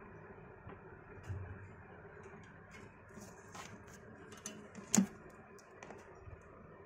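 Small clicks and taps of hands handling a small metal idol and its embroidered clothes, with a low thump about a second in and one sharper click about five seconds in, over a steady faint hum.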